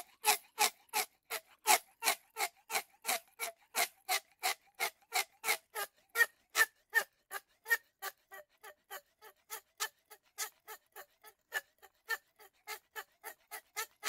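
A mute swan making a long rhythmic series of short rasping sounds, about three a second, quieter for a while in the middle.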